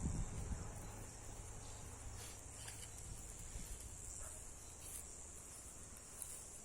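Steady high-pitched insect chorus, like crickets, droning without a break. Low thuds and rumble in the first half-second fade away within the first two seconds.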